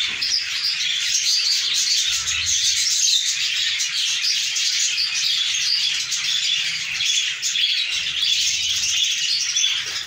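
A flock of small parrots, budgerigars and Fischer's lovebirds, chattering and chirping at once in a dense, unbroken stream of high calls.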